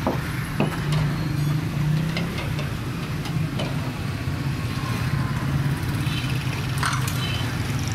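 A steady low engine-like drone, with a few sharp clicks scattered through it.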